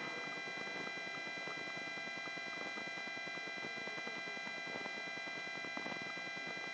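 Steady hum with several high, steady whining tones, the helicopter cabin sound as carried on its intercom audio.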